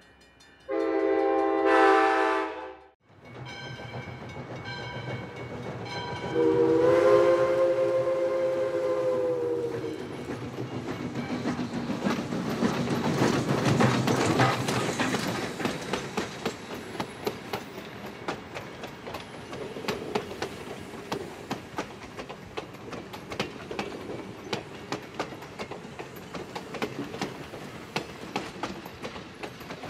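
A short train horn blast that cuts off abruptly, then the steam whistle of Valley Railroad locomotive No. 40 sounds for about four seconds, its chord sagging in pitch as it ends. The locomotive and its passenger coaches then pass close by, the wheels clicking steadily over the rail joints.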